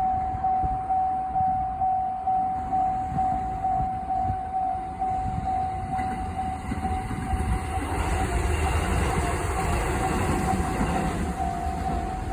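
Railway level-crossing warning bell ringing in even strokes about twice a second. About seven and a half seconds in, a train passes through the crossing, its rumble and wheel noise rising over the bell.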